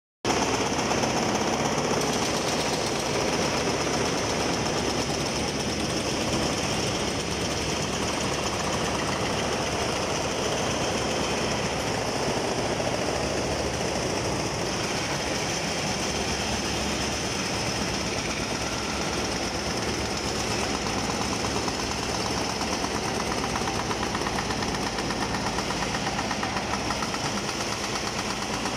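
Mini excavator breaking up reinforced concrete: continuous rapid hammering over the running diesel engine, a steady demolition din with no pauses.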